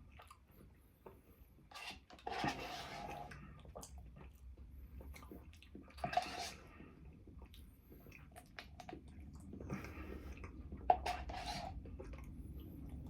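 Close-up eating sounds: chewing and wet mouth noises come in short bursts, with several sharp clicks between them.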